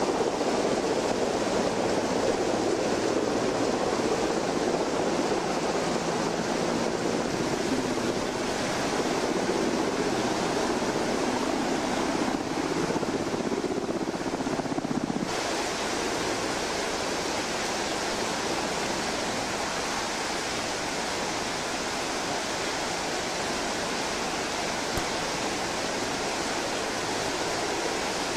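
Steady rushing of a river in full flood, fast muddy water churning over rubble and rocks. About halfway through, the sound turns thinner and hissier.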